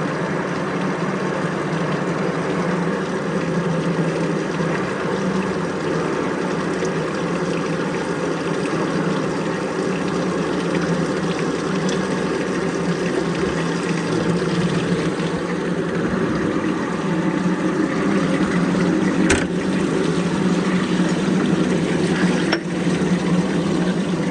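Milling machine running steadily with a constant machine hum, with a sharp click about nineteen seconds in and another a few seconds later.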